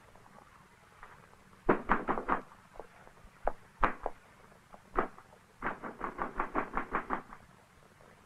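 Knocking on a wooden door: a few scattered raps, then a fast run of about a dozen knocks in the second half.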